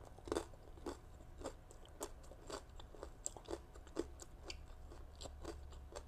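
A person chewing a mouthful of shredded green mango and shrimp salad, with short, crisp crunches about twice a second.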